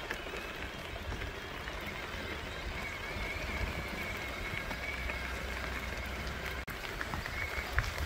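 Mountain bikes rolling along a dirt trail: a steady rush of tyre and wind noise with a low rumble underneath, and a faint high whine that comes and goes.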